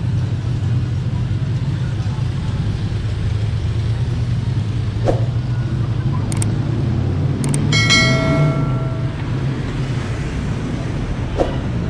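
City street traffic noise: a steady low rumble of cars passing and idling at a crossing. About eight seconds in a brief pitched tone sounds for about a second, and a few sharp clicks are scattered through.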